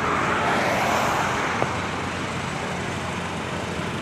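Toyota Hilux pickup driving: a steady rushing noise of engine and road, a little louder in the first second and a half, with a short click about a second and a half in.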